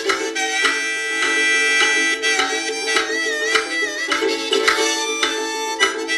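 Harmonica played in a neck rack over a strummed ukulele: held chords and a high note that wavers, with regular strum strokes underneath.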